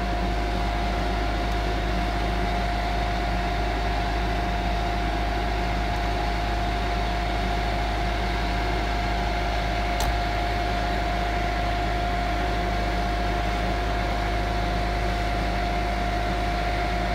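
Hitachi crawler excavator's diesel engine idling steadily, with a constant whine above the engine note. A single sharp click about ten seconds in.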